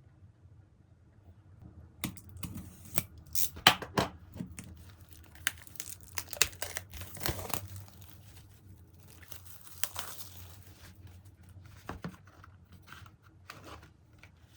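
Packaging being torn and crinkled by hand: sharp crackling and rustling that start about two seconds in, come thick and fast for several seconds, then thin out to a few scattered rustles.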